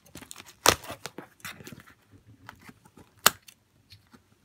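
Scissors snipping through clear packing tape on a cardboard box: two sharp snips, one under a second in and one about three seconds in, with fainter crackling of the tape between.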